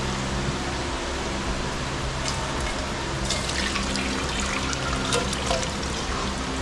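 Chicken curry being ladled from a steel kadhai into a steel pot: gravy slopping and pouring, with the ladle clinking and scraping on the steel from about two seconds in, over a steady background hum.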